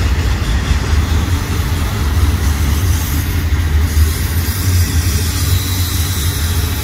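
Union Pacific freight train rolling past close by, its autorack and double-stack container cars making a steady rumble on the rails. A faint high whine comes in near the end.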